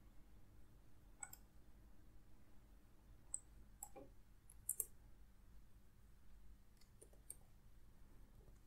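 Near silence with faint computer mouse and keyboard clicks: a few scattered single clicks and a quick double click just before five seconds in.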